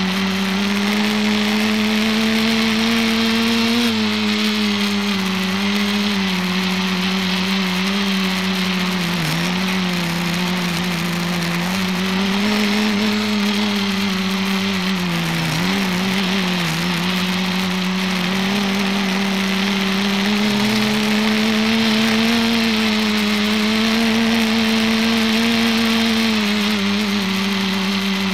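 ETFD2 flying-disc multicopter's electric motors and propellers droning, heard close up from its onboard camera. The pitch wavers up and down with throttle and dips briefly a few times midway, over a steady hiss of prop wash.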